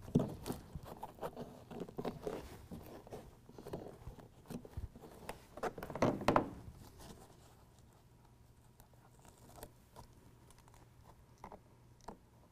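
Hands handling and pressing a carpet-like truck bed liner panel and its adhesive hook-and-loop strips into place: rustling, scuffing and small clicks. It is busiest in the first half, with the loudest rustle about six seconds in, then thins to a few faint ticks.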